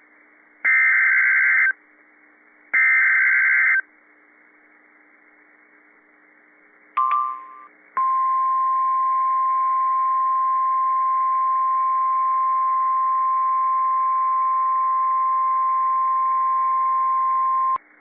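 NOAA Weather Radio Emergency Alert System broadcast: two bursts of the SAME digital header, each a harsh, data-like warble about a second long with a second's gap between. A short two-note beep about seven seconds in, then the steady single-pitched 1050 Hz warning alarm tone held for about ten seconds, the signal that a warning such as this tornado warning follows.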